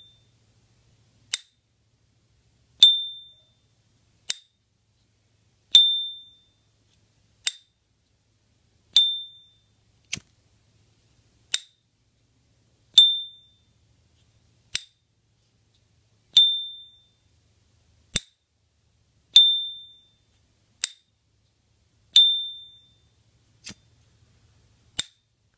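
S.T. Dupont Ligne 2 lighter lid flipped open and shut again and again. Each opening gives its clear, high, ringing "ping", which dies away over about half a second, and each closing gives a short dry click. Seven pings sound, about one every three seconds, with a click between each pair.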